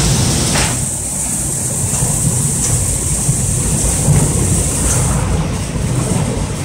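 Humphries belt manlift running in its shaft: a steady low rumble with a high hiss over it, and a few faint clicks.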